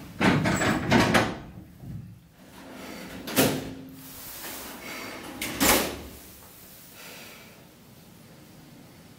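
Doors of a cliff-railway car being shut: a rattling clatter near the start, then two sharp clunks a little over two seconds apart.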